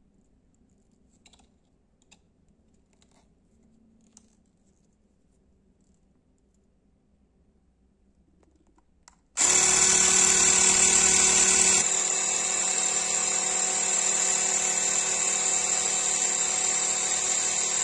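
Handheld electric air pump switched on after a few faint handling clicks: its motor starts suddenly about halfway through and runs with a loud, steady high-pitched whine, dropping slightly in level a couple of seconds later as it inflates through the valve adapter.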